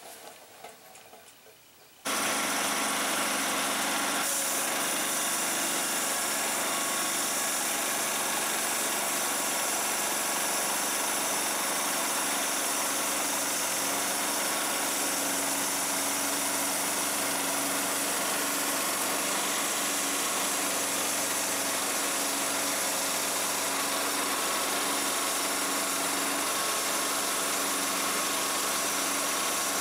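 Small gasoline engine of a portable band sawmill running steadily, driving the band blade as it cuts a squared timber into 2x boards. It comes in suddenly about two seconds in.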